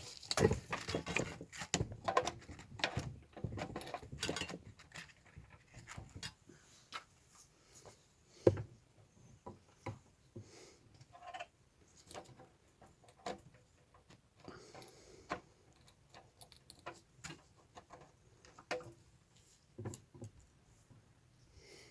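Small clicks, taps and rustles of hand-work at a workbench, wires and small tools being handled, busiest in the first few seconds and then scattered single clicks.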